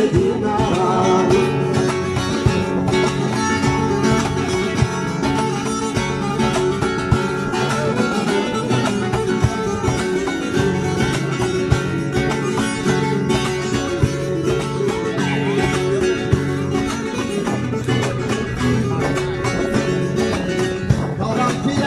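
Live folk dance music led by a plucked string instrument, played as an instrumental passage without singing, with sharp percussive taps running through it.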